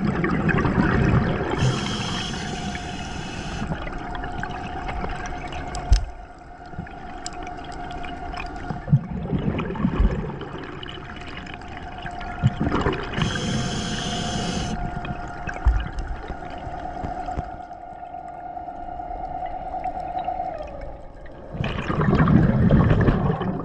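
Scuba diver breathing underwater through a regulator. There is a hissing inhale twice, about eleven seconds apart, and low bubbling exhalations between them, over a steady faint hum.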